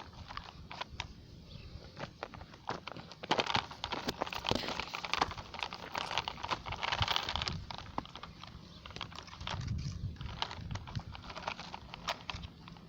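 Radio-controlled mini excavator at work: a dense run of rapid small clicks and rattles, heaviest in the middle, with a short low rumble near the end.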